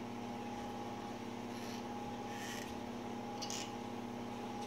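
A few faint scratchy rubs of a solvent-wet cotton swab worked inside an AR-15 bolt's firing-pin channel to clean out carbon, over a steady room hum.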